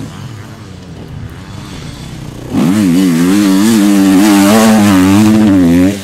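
Enduro dirt bike engine, fairly quiet at first, then suddenly loud about two and a half seconds in. It revs up and down quickly with the throttle, and drops off briefly just before the end.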